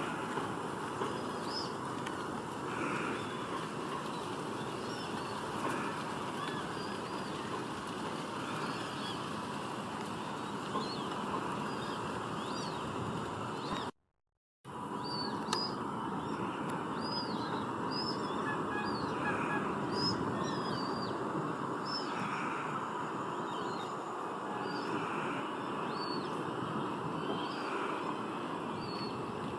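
Eurasian coot chicks cheeping, many short high calls repeating over steady background noise. The sound cuts out for about half a second around the middle.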